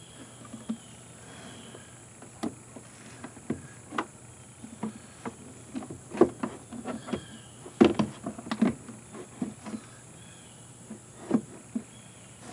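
Irregular light clicks and knocks of hand work on an outboard motor, as parts and tools are handled and fitted back on, with the loudest knocks around six and eight seconds in.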